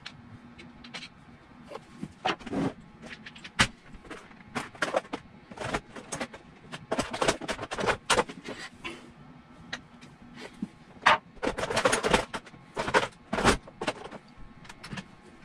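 Irregular clicks, clinks and scraping of a screwdriver and hand work on metal as the screws come out of the impeller housing cover on a Westerbeke marine generator's raw-water pump, with a couple of short rattling clusters in the second half.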